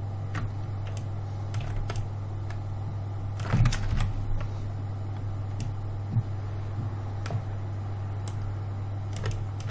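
Scattered clicks of a computer keyboard and mouse, about a dozen irregular taps with a louder cluster around three and a half seconds in, over a steady low electrical hum.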